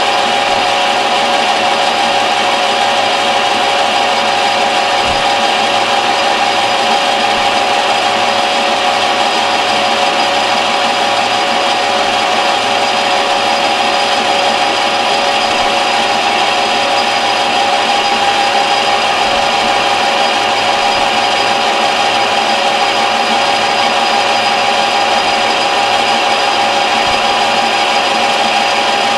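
Metal lathe running at a steady speed with a constant whine while a single-point turning tool cuts along the outside of a metal shotgun muzzle-brake blank.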